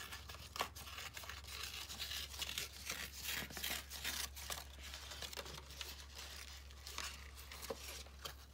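Paper being torn by hand in a series of short, irregular rips, with the sheets rustling between them, as the page edges are torn jagged.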